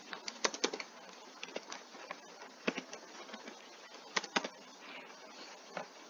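Computer keyboard keys clicking as code is typed: scattered keystrokes, some in quick clusters, the loudest near the start and about four seconds in, over a steady background hiss.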